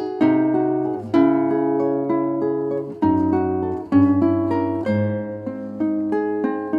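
Acoustic guitar music: plucked notes and chords changing about once a second, with a low bass note under them.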